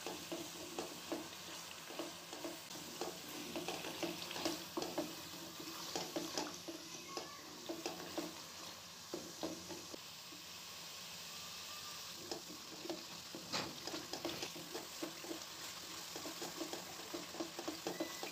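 Tomato-and-spice masala frying (bhuna) in oil in a kadhai. It sizzles steadily while a spatula scrapes and stirs it in quick repeated strokes, and the stirring eases briefly about halfway through.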